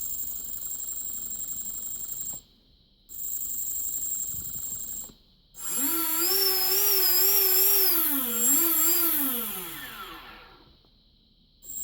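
Small electric motor switched on and off: two runs of about two seconds each with a steady high-pitched whine, then a louder run of about four seconds whose pitch wavers and then falls as it winds down to a stop.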